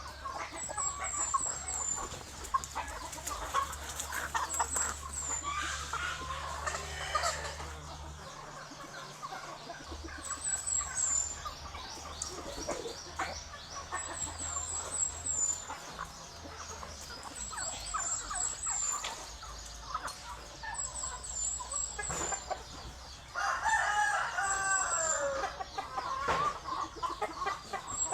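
Chickens clucking, with a rooster crowing; the loudest calls come about three-quarters of the way through. Short high chirps repeat every few seconds.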